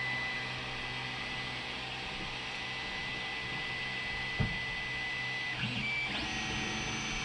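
3D printer laying down a priming line of filament before the print: fans running with a steady high motor whine. The whine changes pitch about five and a half seconds in as the head's movement changes, and there is a light knock about four seconds in.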